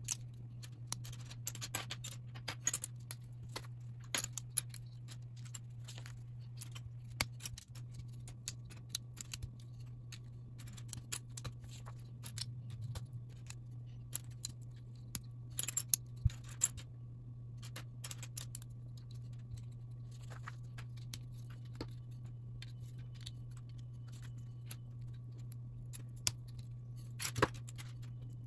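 LEGO bricks clicking and clattering as hands press plastic pieces together and pick through loose parts on a table: irregular sharp clicks, with a few louder clusters about halfway and near the end. A steady low hum runs underneath.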